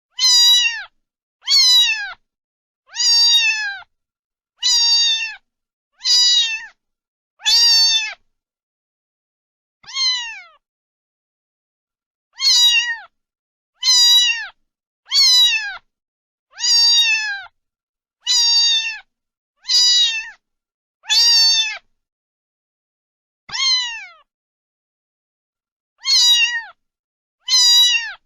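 Domestic cat meowing over and over: about seventeen short meows, each sliding down in pitch, with silence between them.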